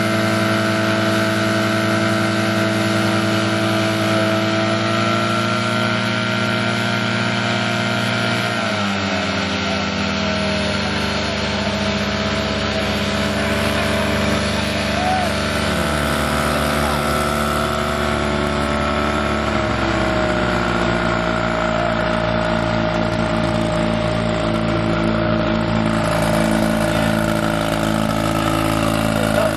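Portable fire pump engine running hard while pumping water to the attack hoses. Its engine note drops about nine seconds in and shifts again a couple of times later as the speed changes.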